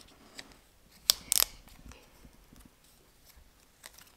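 Clear protective plastic film being peeled off a new Apple AirPods charging case: a few sharp crackles and clicks, the loudest a pair about a second in.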